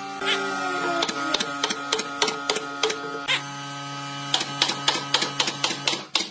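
Nail gun firing nails into wooden slats in quick, uneven succession, about three or four sharp shots a second. The sound cuts off suddenly near the end.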